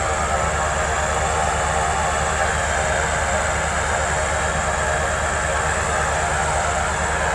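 Rear propeller engines of a moored Zeppelin running steadily, with the front propeller shut down.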